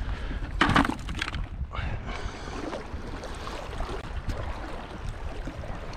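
Wind buffeting the microphone: a steady low rumble, briefly louder just under a second in.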